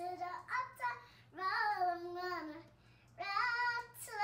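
A young girl singing without accompaniment in three short phrases, the middle one drawn out on a long held note.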